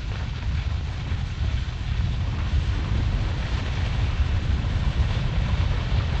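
Wind buffeting the microphone: a loud, steady rumble with a hiss over it.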